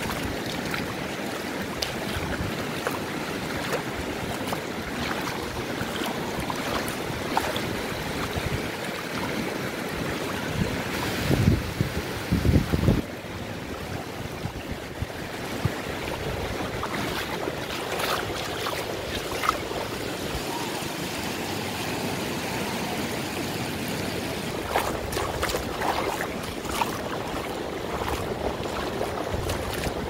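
Small waves lapping and washing over shallow water at the shore, with wind on the microphone. About eleven seconds in, a couple of seconds of heavy wind buffeting.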